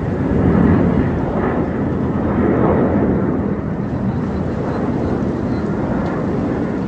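Jet noise from the Suryakiran team's BAE Hawk trainers flying in close formation overhead: a loud, steady rumble that swells a little about a second in and again about three seconds in.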